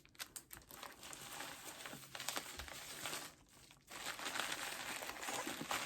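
Packaging crinkling and rustling as items are handled and unwrapped, with small clicks, pausing briefly a little past halfway.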